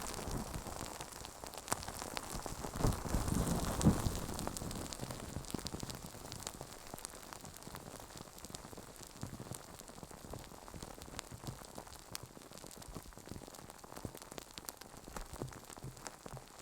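Close-miked ASMR handling of a microphone: hands rubbing and swishing over it, with a steady patter of fine crackling clicks. The swishes are louder in the first four seconds, then only the fine crackle goes on.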